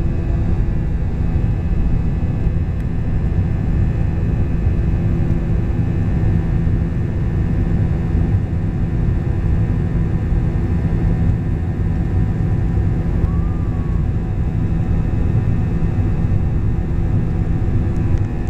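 Airbus A321-200 jet engines running during the climb after takeoff, heard inside the passenger cabin: a steady, loud deep rumble with a few steady hum tones on top.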